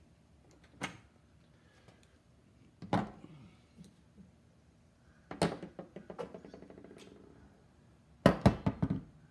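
Metal handling clicks and knocks as a torque wrench is taken off a torque tester's drive and handled. There are single sharp knocks about one and three seconds in, then a knock followed by a fast run of clicks that slows and fades over about two seconds, and a cluster of louder knocks near the end.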